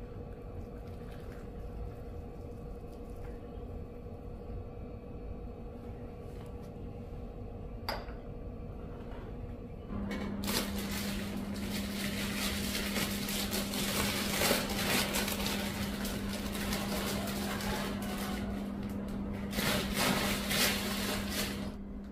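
Hot water poured from a stainless electric kettle into a porcelain mug, faintly. About ten seconds in it gives way to louder kitchen noise: a steady hum with rustling and scraping, the scraping strongest near the end as garlic is worked on a hand grater.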